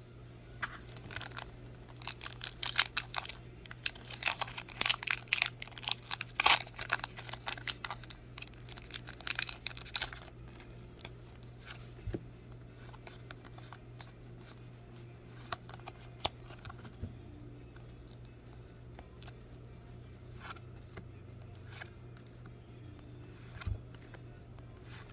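Foil Pokémon booster pack being torn open and crinkled, a dense crackling for the first ten seconds or so, followed by occasional light clicks and rustles.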